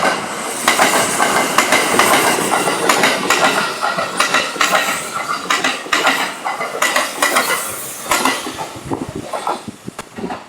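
Kintetsu 22000-series limited express train passing close by, its wheels clattering rapidly over the rail joints with a thin metallic ringing through the clatter. It dies away near the end.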